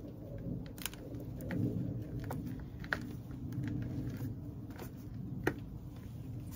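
Bare hands pressing and spreading moist potting compost in a plastic pot: a soft crumbly rustle with a few scattered light ticks, over a steady low background rumble.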